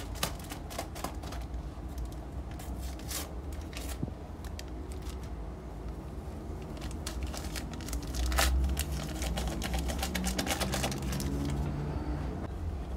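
Paper sachets of baking powder being torn, crinkled and tapped as the powder is shaken into a glass mixing bowl. The handling makes a quick run of small clicks and rustles, busiest in the second half, over a low steady hum.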